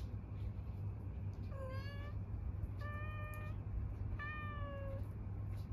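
Cat meowing three times, each call a clear pitched meow of half a second to under a second, the last one the longest and falling slightly in pitch at the end.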